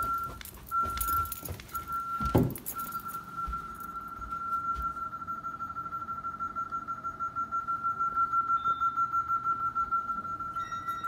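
Security-system keypad sounding a single pitched beep tone: evenly spaced beeps about half a second long, then after a thump about two and a half seconds in, one continuous steady tone. Footsteps on carpeted stairs are heard at first.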